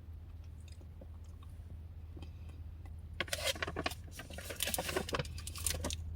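Close-up chewing of almond dark chocolate bark, crunchy crackling that starts about three seconds in, over a steady low hum.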